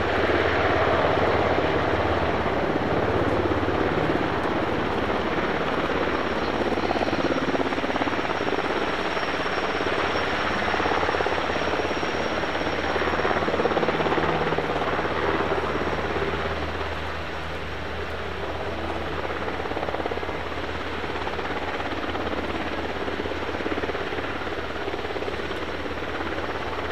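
UH-60J rescue helicopter running steadily: rotor noise over the whine of its turboshaft engines, with a faint high whine standing out in the middle.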